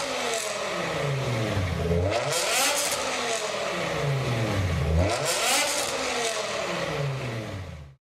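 BMW M5 engine revving hard, its pitch swinging down and back up twice, each time with a short burst of rasping crackle from the exhaust. It starts and cuts off abruptly.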